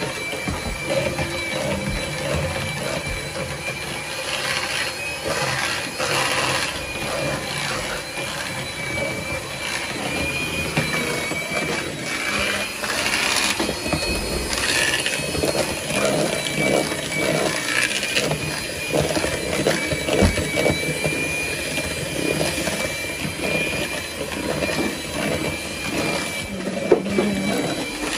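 Electric hand mixer running steadily, its motor whining with a slightly wavering pitch as the twin beaters whisk batter in a plastic bowl.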